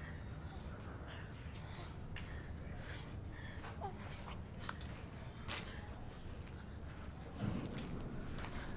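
A cricket chirping in a continuous high, finely pulsed trill over a steady low rumble, with a soft low thump about seven and a half seconds in.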